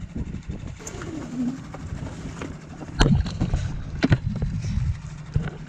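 Small boat's motor running with a low steady hum, with wind and water noise. Two loud thumps come about three and four seconds in as the inflatable dinghy bangs over the waves.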